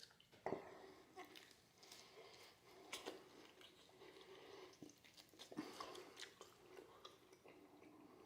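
Faint chewing and biting: a man eating, with irregular soft clicks throughout.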